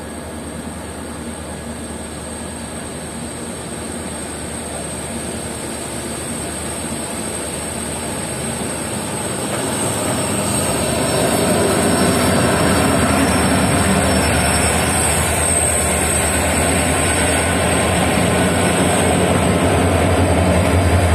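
Oncoming WDG4 diesel locomotives passing close by on the next track, heard from a moving train: a low engine drone mixed with wheel-on-rail noise that grows louder over the first ten seconds or so and stays loud as the locomotives go by.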